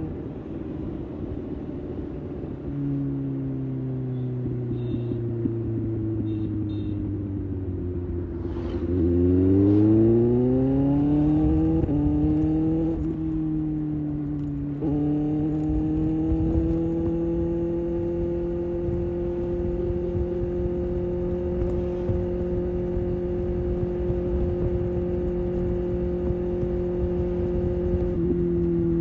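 Kawasaki ZX-6R's inline-four engine under way: the revs fall off for about eight seconds, then climb sharply as it accelerates, two quick gear changes drop the pitch, and it settles into a steady cruise.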